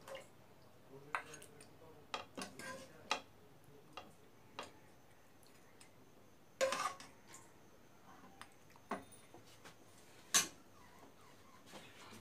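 Metal spoon scraping and clinking against a black karahi as cooked beef bhuna is spooned out into a serving dish. Irregular knocks and short scrapes, with the loudest clinks about six and a half seconds in and again about ten seconds in.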